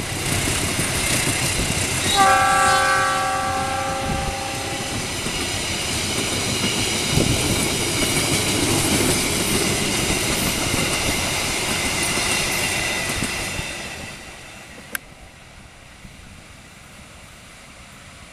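Diesel locomotive passing with a train of passenger coaches, sounding a multi-note horn for about three seconds a couple of seconds in, over the steady run of wheels on rail with a high-pitched hiss and rattle. The train noise fades about 14 seconds in, and a single sharp click follows.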